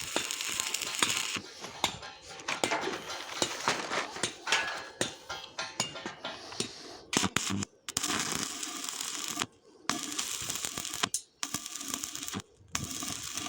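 Welding crackling for about a second and a half, then a run of irregular sharp metal clicks and taps, broken by several brief sudden drop-outs.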